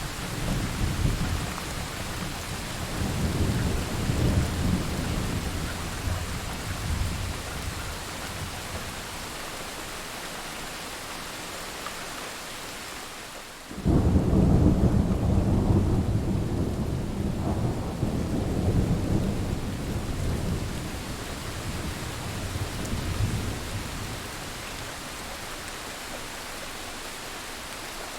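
Thunderstorm: steady rain with rolling thunder. A low rumble dies away over the first few seconds, then about halfway a sudden loud thunderclap breaks and rolls on for some ten seconds before fading back to the rain alone.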